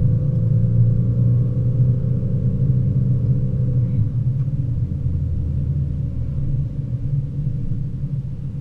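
Engine drone and road rumble from inside the cabin of a Mercedes ML350 4Matic, its V6 pulling steadily up a mountain road. The engine note sinks slightly over the first few seconds, and the sound eases off a little toward the end.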